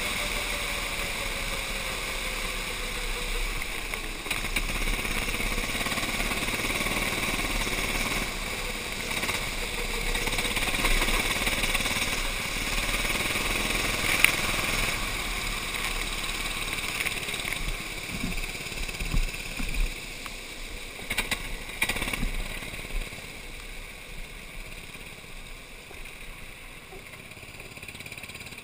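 Racing kart engine running hard, heard from the kart itself over wind and spray noise on a wet track. Its sound fades over the last ten seconds or so as the kart slows, with a few sharp knocks a little past halfway.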